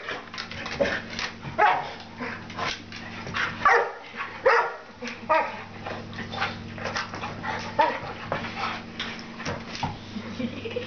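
Dog barking and yipping in play: many short, sharp calls coming irregularly, often several in quick succession.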